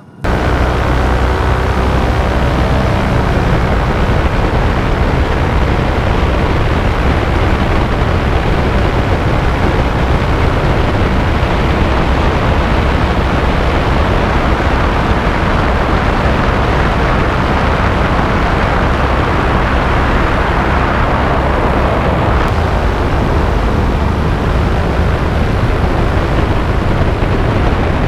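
Paramotor two-stroke engine and propeller running steadily at flight power, a loud unbroken drone that cuts in sharply at the start.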